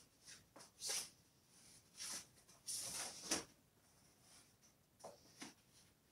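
Foam packing being pulled off a new electric mountain bike's frame: several short rustling, scraping bursts, the loudest about a second in and around three seconds in.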